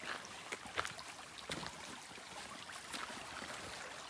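A stream running steadily, with a few short, sharp knocks scattered through it.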